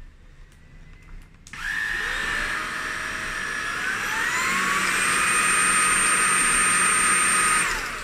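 Redkey F10 cordless stick vacuum's motor switching on about a second and a half in, its whine climbing in pitch as it is stepped up to full power, then running steady. It is switched off near the end and winds down with a falling whine.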